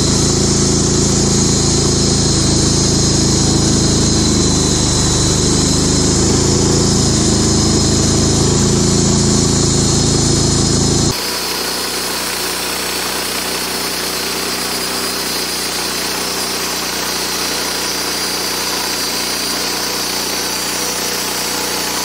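Gasoline-engine band sawmill running under load as its blade cuts through a Western Hemlock log, a steady engine note with the hiss of the blade in the wood. About halfway through the sound changes abruptly: the heavy low engine sound drops away and the higher cutting hiss is more prominent.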